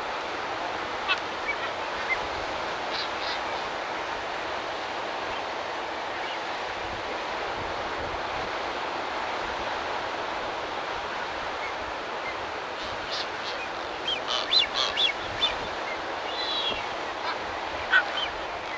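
Steady rushing noise of surf and wind on a rocky coast. Short sharp clicks and chirps sound now and then, most of them in a cluster about two-thirds of the way through.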